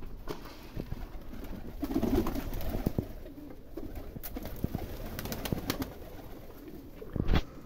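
A flock of young domestic pigeons cooing, with sharp wing claps and flapping as they land and crowd together. There is a loud, short thump near the end.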